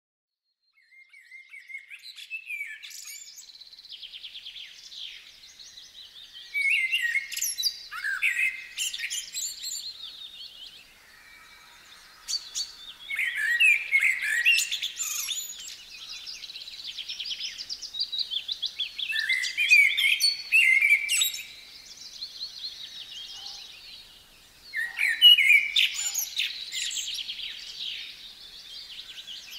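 Songbirds singing in a backyard: loud phrases of high, chirping song about every six seconds over steadier twittering.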